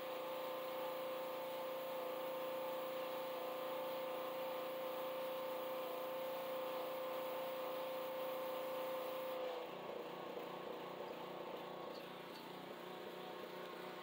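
Pressure washer spraying a seat belt's webbing: a steady pump whine over the hiss of the water jet. It cuts off suddenly about ten seconds in, leaving a quieter running sound.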